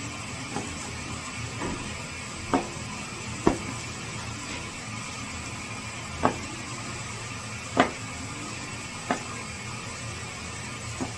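Sharp, short knocks at irregular intervals, five loud ones and a few softer, over a steady background hum.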